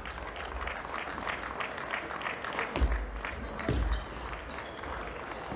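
Table tennis rally: sharp clicks of the celluloid ball off bats and table and heavy thuds of footwork on the court floor, followed by scattered clapping once the point ends.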